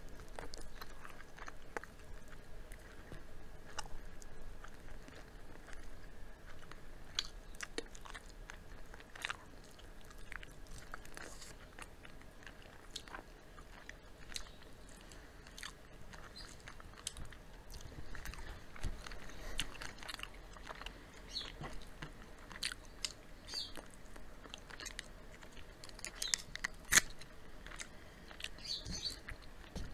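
Close-miked chewing and biting of crispy fried chicken and cheese fries by two people: a steady run of crunching crackles and wet mouth sounds, with one sharp loud crunch near the end.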